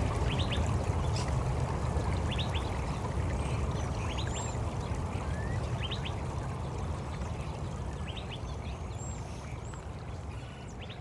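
Steady rushing water with birds chirping over it in short paired calls every second or two, slowly fading out.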